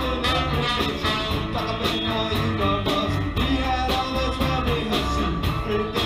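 Live band playing an upbeat tune: saxophone and trombone carry the lines over electric guitars, a bass line and steady drum hits.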